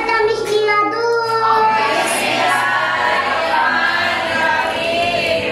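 A child singing, with long held notes.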